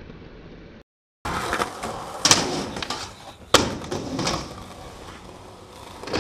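Skateboard wheels rolling on concrete, with sharp clacks and slaps of the board as a trick is done on a bank ramp: two loud hits a little over a second apart, a smaller one after, and another near the end. The sound drops out for a moment about a second in.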